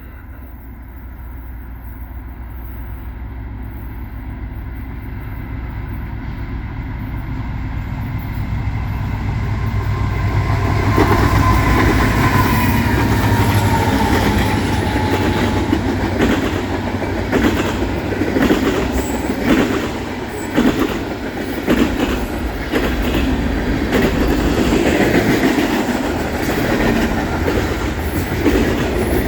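CN manifest freight train going past: the diesel locomotives' deep engine rumble grows steadily louder, a high tone glides downward as they go by about eleven seconds in, then the freight cars roll past with a rhythmic clickety-clack of wheels over rail joints.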